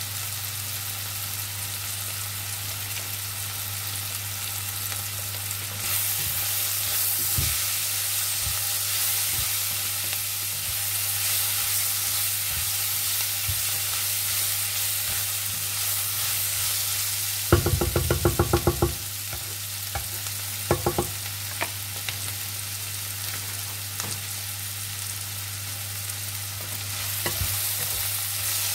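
Chopped vegetables sizzling in hot oil in a nonstick pan as they are stir-fried with a wooden spatula: a steady frying hiss with light scrapes and taps of the spatula. A quick run of sharp clicks comes about two-thirds of the way through.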